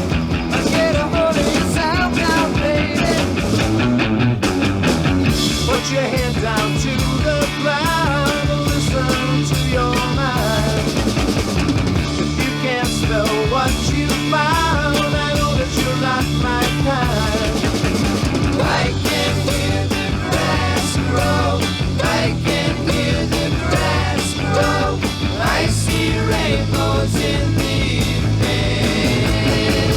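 1960s psychedelic rock song played by a full band at a steady tempo, with no clearly sung words.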